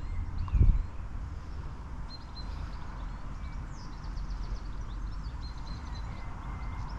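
Wind rumbling on the microphone, with small birds chirping faintly in the background and a single knock about half a second in.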